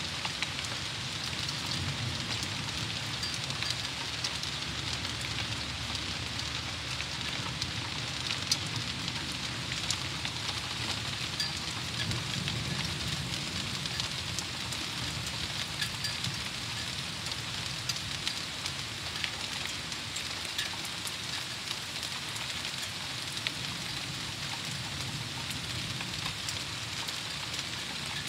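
Steady thunderstorm rain falling, with many single drops ticking sharply close by.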